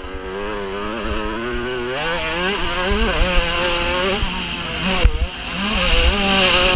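Motocross bike engine under hard throttle, its pitch rising and falling as the rider accelerates and shifts, with a brief drop in revs about five seconds in. Low wind rumble on the helmet-mounted microphone runs underneath.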